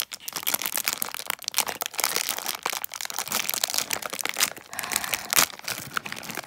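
Foil blind-bag packet crinkling as it is pulled open by hand: a dense, irregular run of crackles.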